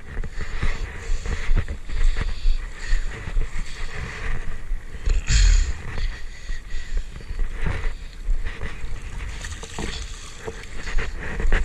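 Wind buffeting the microphone in gusts over shallow sea water, with splashing near the end as hands are rinsed in the water.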